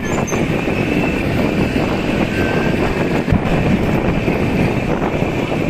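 Wind buffeting the microphone over a vehicle engine's steady running, with a short low knock a little past three seconds in.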